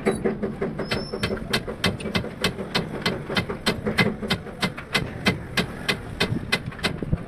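Rapid, evenly spaced tapping or knocking, about five strikes a second, with a low hum under the first couple of seconds.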